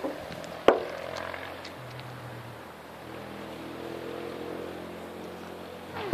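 A sharp click about a second in as the BSA SuperSport .177 break-barrel air rifle is reloaded, then a faint steady engine drone in the background, and right at the end a sharp crack as the rifle fires.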